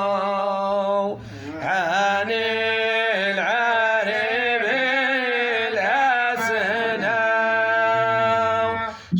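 A man chanting an unaccompanied Sufi devotional poem in Arabic, in long, ornamented lines. There is a short break about a second in and another near the end.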